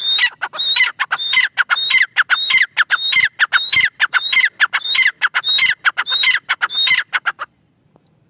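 Gray francolin (teetar) giving its loud ringing call, the same sharp phrase repeated rapidly about twice a second, for about seven and a half seconds before it stops.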